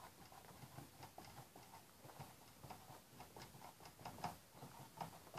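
Faint, irregular little ticks and scratches of a felt-tip marker writing on a whiteboard, over near-silent room tone.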